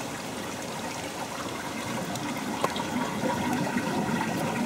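Stream water running out of a small hole in the hillside, heard close up at its mouth: a steady splashing and trickling that grows slightly louder.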